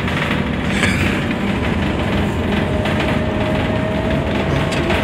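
Cabin noise inside a Scania articulated bus on the move: a steady rumble of engine and running gear, with a faint whine coming in around halfway.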